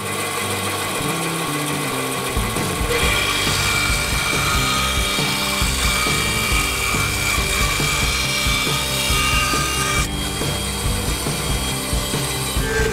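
Bandsaw running and cutting through a pine 2x4, the blade rasping steadily through the wood.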